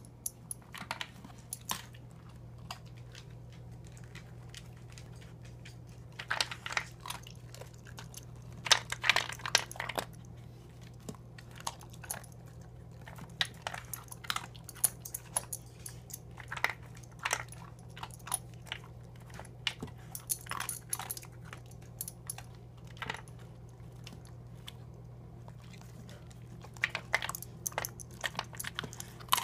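Australian Cattle Dog crunching dry kibble from a plastic slow-feeder bowl: irregular clusters of crisp crunches and clicks with short pauses between, over a steady low hum.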